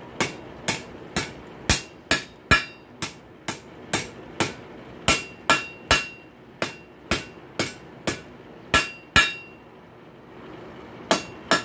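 Blacksmith's hammer striking a steel rail spike over the edge of an anvil, bending its end to about 45 degrees: steady blows about two a second, many with a short metallic ring. Near the end the hammering stops for nearly two seconds, then two more blows.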